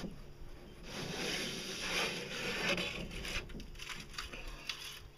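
Metal inserts scraping and rattling as they are pulled out of a fiberglass pipe, a rough scraping that dies down about three and a half seconds in.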